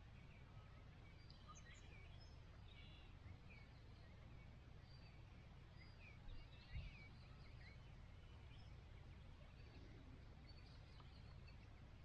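Faint distant birds chirping and whistling in short scattered calls, over a low steady rumble of wind on the microphone, with a couple of brief low bumps about six to seven seconds in.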